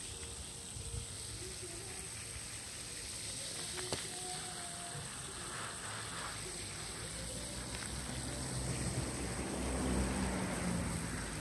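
Garden hose shower-spray nozzle hissing as it sprays water onto wet asphalt and an owl's feathers, growing louder near the end.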